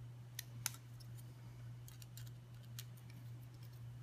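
Small screwdriver turning tiny screws into a glass-fibre micro-quad frame's standoffs: scattered light, irregular clicks of metal on the screws and frame, the sharpest one under a second in, over a low steady hum.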